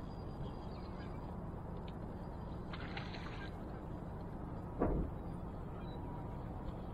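Steady low hum aboard a bass boat, with a short rattle about three seconds in and a single dull knock about five seconds in, the loudest sound.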